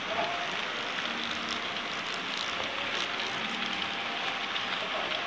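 HO-scale model freight train rolling past, a steady rattling hiss of metal wheels running on the track as a long line of wagons goes by.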